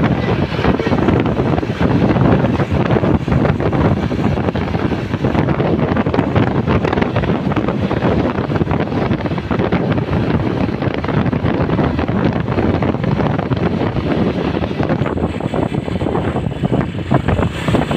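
Strong wind buffeting the microphone over a steady rumble of road traffic, as when recording from a moving vehicle. No horn sounds.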